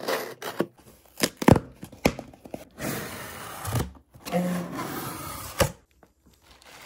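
Scissors cutting the tape on a cardboard shipping box, then the flaps opened and crumpled packing paper and bubble wrap pulled out. Several sharp taps and knocks on the cardboard mixed with stretches of paper rustling.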